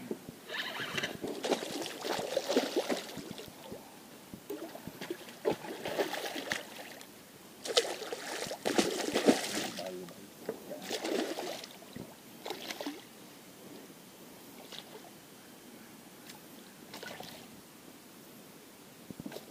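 Hooked pacu thrashing and splashing at the surface in irregular bursts of water noise while it is held at the bank, the loudest about eight to ten seconds in, then quieter.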